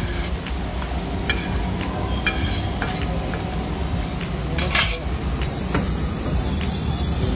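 Metal spatula scraping and tapping on a large flat griddle while food sizzles: a handful of sharp scrapes and knocks over a steady frying hiss, the loudest a little under five seconds in.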